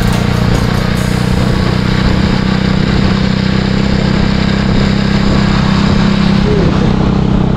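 Bajaj Avenger 220 motorcycle's single-cylinder engine running at a steady cruise, under a loud hiss of wind and tyres on the wet road.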